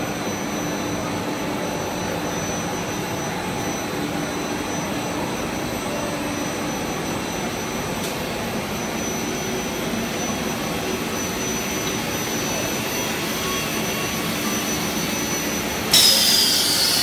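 Steady running noise of a PVC foam board extrusion line: a continuous mechanical whir with faint steady tones, one low and one high. About sixteen seconds in, a sudden loud high hissing burst starts and begins to fade.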